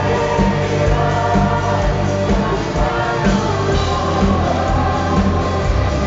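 A live rock band playing a song with a male lead singer singing over guitars, bass and drums.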